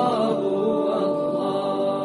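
Devotional nasheed: a sustained, chanted vocal line with held, slowly bending notes, getting gradually quieter as the track closes.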